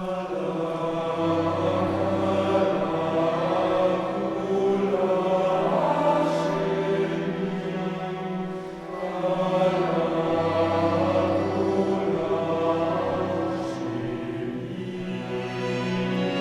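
Concert choir singing slow, sustained chords in long phrases, with deep low notes sounding twice beneath them.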